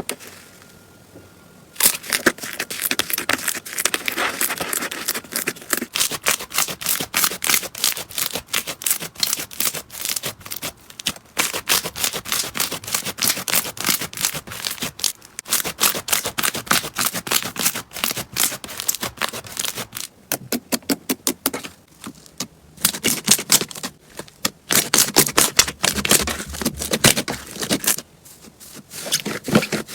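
Slime being squeezed and worked by hand, giving rapid crackling clicks and pops that start about two seconds in and go on with a few short pauses.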